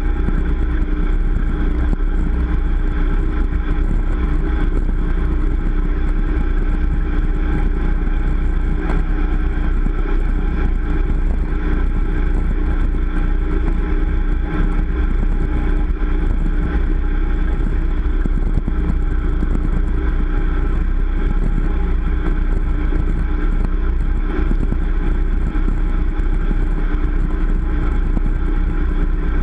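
Motorboat engine running steadily at speed while towing a water skier, with no change in pitch or level.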